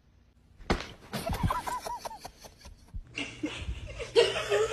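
People laughing in short spurts off camera. About three seconds in, a steady low hum comes in under more laughter.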